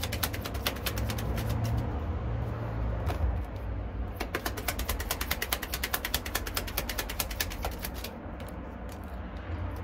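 A deck of Kipper fortune-telling cards being shuffled by hand: a fast run of papery clicks and slaps from the card edges, thinning out near the end, over a low steady rumble.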